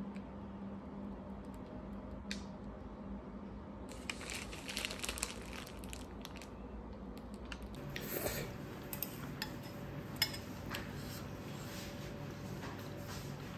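Thin plastic garment bag rustling and crinkling as it is handled, over a low steady hum, followed by a few light clinks of a metal spoon against a ceramic bowl.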